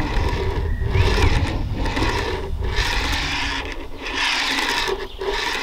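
A 4 mm scale P4 model wagon pushed by hand along hand-built nickel silver track and a turnout, its wheels rolling over the rails with a rasping sound in several short runs with brief pauses between them. It runs smoothly through the turnout without derailing.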